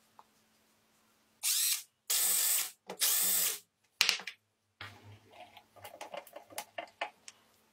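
A small power tool run in three short bursts of about half a second each, then a sharp click and a run of small irregular clicks and taps.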